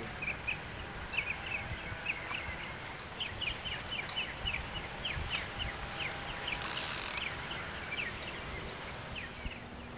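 Birds chirping: a run of short, high, falling chirps, a few a second, over faint outdoor background noise, with a brief hiss about seven seconds in.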